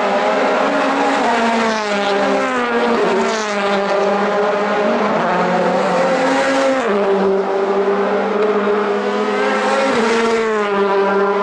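Racing engines of WTCC touring cars, turbocharged 1.6-litre four-cylinders, running hard as cars come on one after another. The pitch rises under acceleration and drops suddenly at gear changes, about seven seconds in and again near ten.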